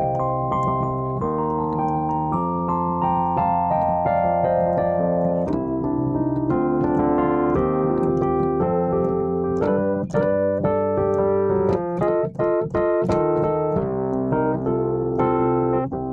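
Instrumental break of a slow song: sustained electric-piano or keyboard chords changing every second or two, joined by sharp percussive hits in the second half.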